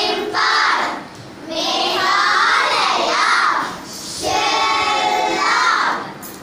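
A group of young girls singing together in unison, in phrases broken by short pauses about a second in and again about four seconds in.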